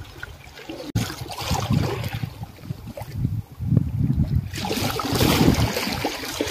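Sea water washing and sloshing against the breakwater's rocks, with irregular low surges and a louder, hissing wash from about four and a half seconds in. Wind buffets the microphone.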